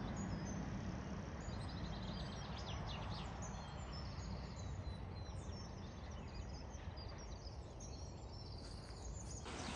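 Small birds singing and chirping in quick, fluttering phrases over steady low background noise.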